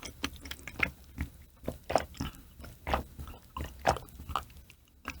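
Close-miked chewing of raw mackerel sashimi with green onion kimchi: irregular wet mouth clicks and soft bites, a stronger one about once a second.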